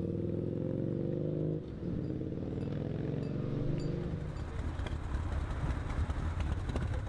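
Big V-twin motorcycle engines: first a steady engine note as one bike rides along, then, from about a second and a half in, a lower, uneven rumble of another big V-twin running at low revs.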